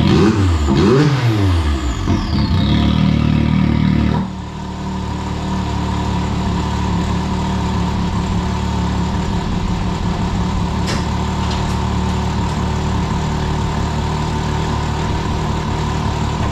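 Can-Am Maverick X3 XMR Turbo RR's turbocharged three-cylinder engine, heard through an exhaust fitted with an electronic cutout. It is revved in a few quick blips and held at higher revs, then drops back to a steady idle about four seconds in.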